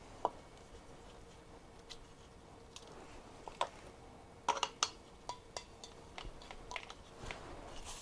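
Small clicks, taps and scrapes of a pressurised refrigerant can being handled and screwed into a plastic trigger dispenser, with a quick run of sharper clicks about halfway through.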